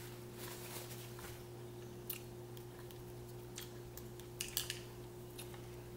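Mussel shells being handled and pried apart to get at the meat: a handful of faint, sharp clicks and light scrapes, a few close together past the middle. A steady low hum runs underneath.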